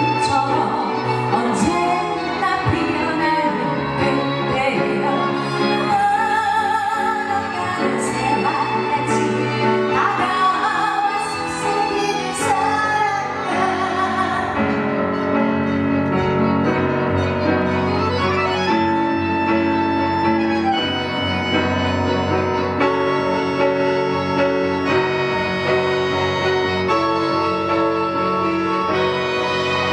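A slow ballad performed live: a female singer's voice with vibrato over instrumental accompaniment.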